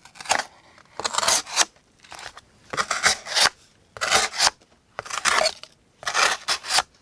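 Steel blade of a Bear Ops Rancor II folding knife slicing through cardboard in about six separate strokes, each a rasping cut of about half a second.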